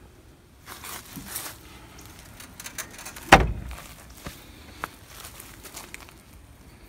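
A car door of a 1975 Pontiac Trans Am shutting with a single loud thump about three seconds in. Rustling and handling noise comes before it, and a few light knocks and steps follow.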